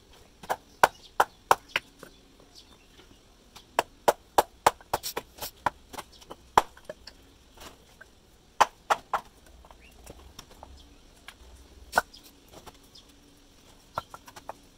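Hammer knocking on clay bricks, chipping and trimming them to size and tapping them into place. The sharp knocks come in irregular runs of several quick strikes with pauses between, and one lone loud knock about twelve seconds in.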